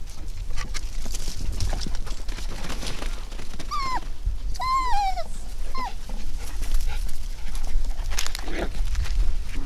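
Havanese puppy giving three high-pitched yips about four to six seconds in, the middle one the longest and falling in pitch, over a steady low rumble.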